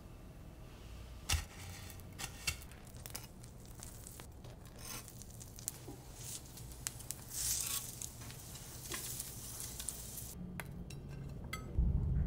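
Kitchen cooking sounds: egg-soaked bread pressed into a crumbly coating, sharp clicks of dishes and metal tongs, and a short stretch of sizzling as the coated bread fries in oil in a pan.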